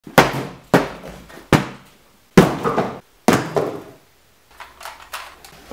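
A pumpkin and a cardboard box landing in turn on a folding table: five heavy thuds about a second apart, then a few lighter knocks near the end.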